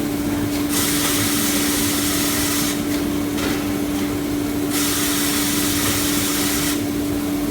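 Automatic band saw cutting machine for maxi toilet paper rolls running with a steady hum. A hiss comes and goes twice, each time for about two seconds.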